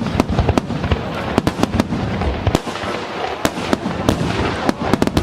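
Aerial fireworks going off in rapid succession: a dense string of sharp bangs and crackles, about four a second, over a continuous noisy wash of further bursts.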